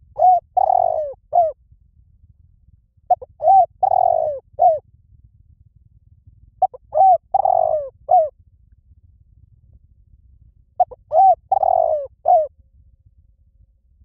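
Spotted dove cooing: four repeated call phrases spaced about three to four seconds apart, each a short coo, a longer rolling coo and a closing coo, lasting about a second and a half.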